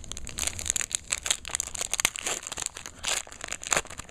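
Trading-card packs and cards crinkling and crackling as they are handled, an irregular run of sharp crackles and rustles.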